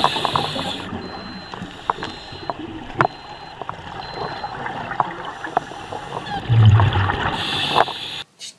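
Underwater sound of a scuba diver breathing through his regulator, with a loud burst of exhaled bubbles about six and a half seconds in and scattered sharp clicks in the water.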